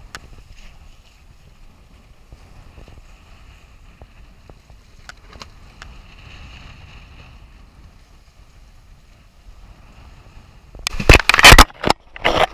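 Faint low rumble of a sailboat under way at night, with a few small clicks and knocks. About eleven seconds in, loud gusts of storm wind blast the microphone.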